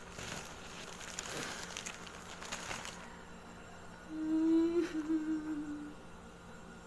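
A woman's wordless hum: a long held note, about four seconds in, that drops in steps. Before it, a few seconds of soft noise.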